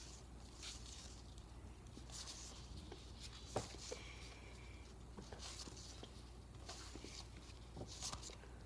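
Faint rustling and sliding of trading cards handled and flipped through by hand, with a couple of soft taps about three and a half seconds in.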